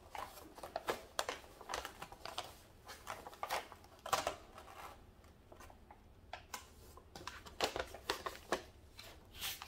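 Glossy release paper on an adhesive diamond painting canvas being handled and smoothed back down by hand, rustling and crinkling in irregular short bursts, with a few louder crackles about four seconds in and near the end.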